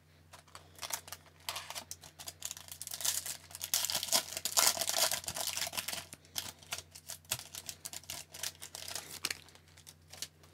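Foil wrapper of a hockey card pack torn open and crinkled by hand: crackling that is thickest about four to six seconds in, then dies away to scattered crinkles. A faint steady low hum runs underneath.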